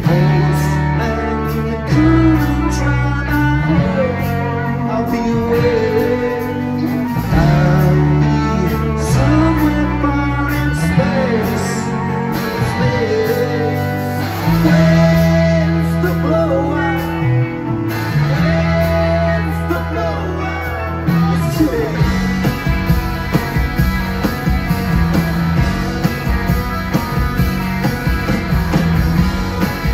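Live rock band playing loud: electric guitars, bass and drums, with a sung vocal line over them. The band comes back in together right at the start after a brief break, and about two-thirds of the way through the held bass notes stop while drums and guitars keep driving on.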